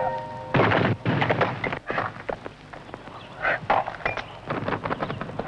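Axe blows chopping into a tree trunk: a run of sharp, irregularly spaced strikes.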